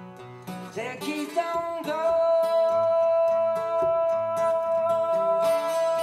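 A song with acoustic guitar and a singer, played through a pair of Buchardt stand-mounted hi-fi speakers and heard in the room; about a second and a half in the melody slides up onto one long held note that carries on over the moving accompaniment.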